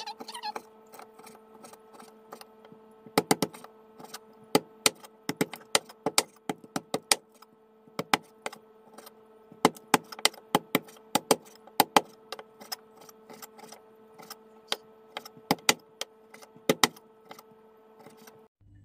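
A large knife chopping raw chicken breast on a wooden cutting board: sharp, irregular knocks of the blade hitting the board, often in quick runs of several strokes, with a faint steady hum underneath.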